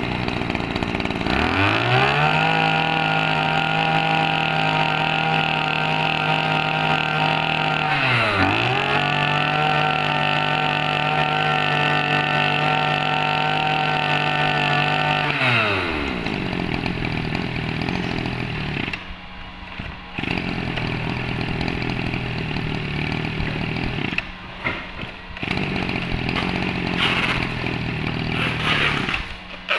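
Small 22cc two-stroke brush cutter engine starting and revving up to full throttle, held high with one brief dip about eight seconds in. About halfway through it drops back to idle and keeps idling.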